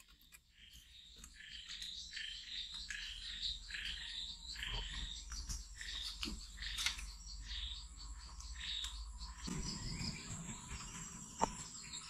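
Wild animal chirping calls repeat about twice a second over a steady high insect drone, typical of a rainforest chorus. A few sharp knocks break in, the loudest near the end. From about three-quarters through, a low rustling noise joins.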